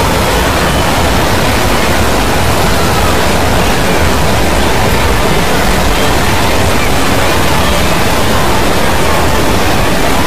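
A loud, steady wall of noise-like sound from many cartoon soundtracks layered on top of each other, blurred into a hissing roar with no single voice or tune standing out.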